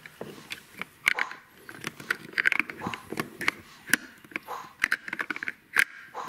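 Hard plastic pieces of a VTech Sit-to-Stand Ultimate Alphabet Train clicking and knocking together as a child's hands handle them, in a string of small, irregular clacks.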